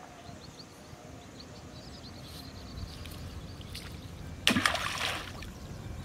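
A single short splash about four and a half seconds in, as a cast fishing line's end lands in the river. Under it a steady low wind rumble, with faint bird chirps in the first half.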